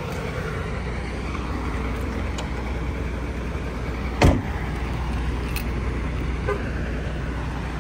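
Steady low rumble of vehicle engines and traffic across a truck-stop lot, with one loud thump about four seconds in.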